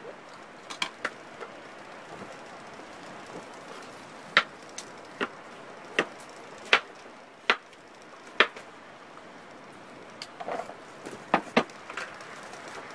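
A kitchen knife cutting vegetables, knocking sharply against a board about a dozen times at irregular intervals, over a steady hiss.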